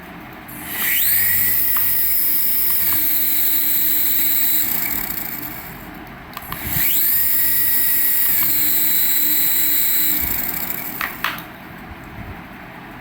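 Small electric motor of a remote-control toy spinning up to a high steady whine, running for a few seconds and winding down, twice in succession.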